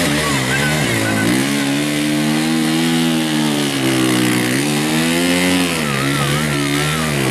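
Dirt bike engine revving hard and held at high revs under heavy load as the bike is forced through deep mud, its note sagging and climbing again several times as the rider works the throttle.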